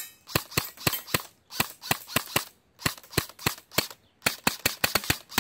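VFC SCAR airsoft rifle firing in semi-auto: a rapid string of sharp single shots, about four or five a second, broken by a few short pauses.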